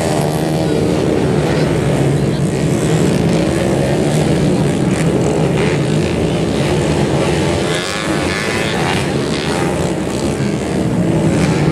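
Dirt-bike engines running together at a steady pitch that wavers a little.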